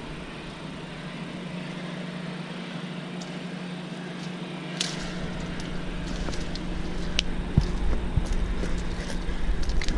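Dry branches and leaves rustling, with a few sharp snaps and taps, as a small tarpon is pulled by hand up through brush. A steady low hum runs underneath, and a low rumble sets in about halfway.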